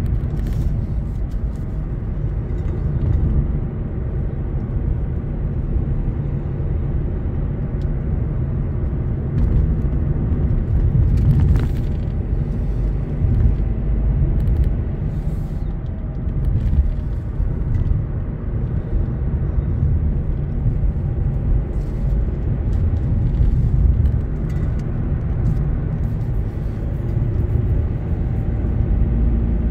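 A car driving, heard from inside the cabin: a steady low rumble of engine and road noise, with a few faint clicks.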